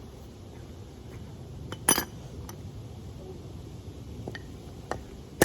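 Metal clinks as a band-type oil filter wrench, stuck on a removed oil filter, is pried at: faint scattered taps and two sharp ringing clinks, one about two seconds in and one near the end.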